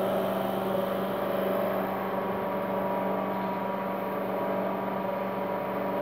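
LG microwave oven running with its outer cover off, a steady hum and whir from its fan and high-voltage transformer, which has 120 V across it. The oven runs but does not heat: the water inside stays cold.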